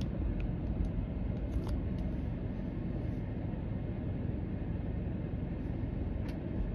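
Steady low rumble of a car's engine and road noise heard inside the cabin while rolling slowly in traffic, with a few faint clicks.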